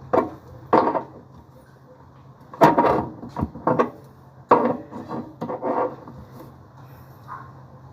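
Irregular knocks and clunks of hard objects being handled and set down, several in quick succession about halfway through, over a faint steady low hum.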